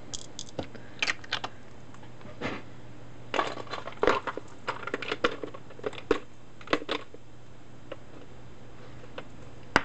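Small objects being handled and rummaged through on a work table: scattered light clicks, clatter and rustling as craft supplies are searched, over a steady low hum.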